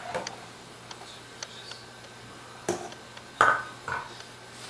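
A metal stirring utensil clinks against the side of a steel stockpot a few times, the loudest knock about three and a half seconds in, with a brief metallic ring.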